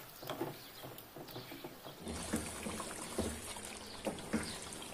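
Wooden spoon stirring chicken in a yogurt sauce in a nonstick pan, with irregular wet stirring and scraping strokes. About two seconds in, a steady frying hiss joins the strokes, as the chicken now cooks in oil that has separated from the sauce.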